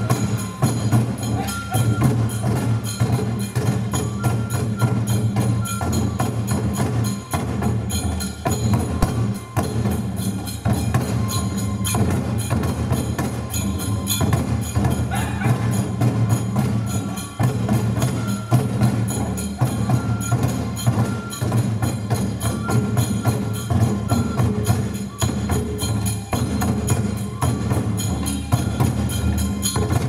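Live Japanese folk dance music with a fast, steady percussion beat from drums carried by the dancers.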